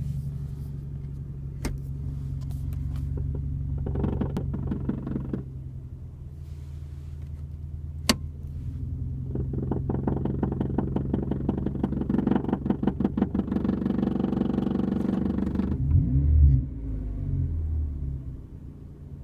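Scion iQ engine running with its exhaust note, revved briefly about four seconds in and again for several seconds from about nine seconds in, with a rapid pulsing rattle over the revs. The rev drops off suddenly near the end into a low, uneven burble, and there are two sharp clicks along the way.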